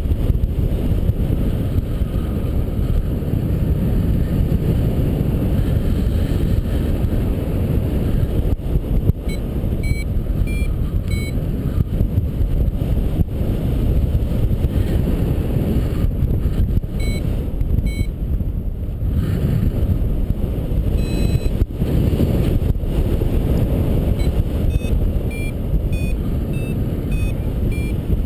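Wind rushing steadily over the microphone of a paraglider in flight, with a flight variometer beeping in several short runs of high beeps whose pitch steps upward, the vario's signal that the glider is climbing in lift.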